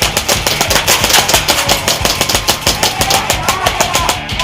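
A fast, even run of sharp clicks, about ten a second, over music with a bass line and a short melody near the end.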